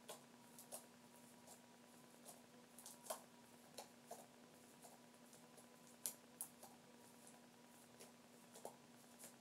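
Faint, small clicks and pops of stretchy slime being poked and pressed with fingertips, coming irregularly about once or twice a second, the sharpest about three seconds in and again about six seconds in.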